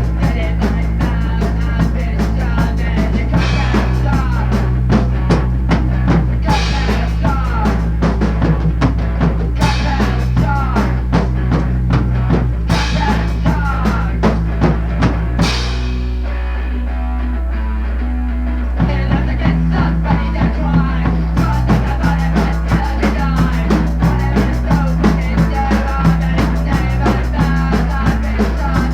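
Rock music with a drum kit keeping a steady beat. About halfway through the drums and high end drop out for a few seconds, then the full band comes back.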